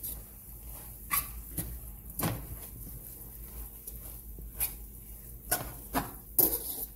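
Spoon stirring corned beef and cabbage in a metal pot, with irregular knocks and scrapes of the spoon against the pot.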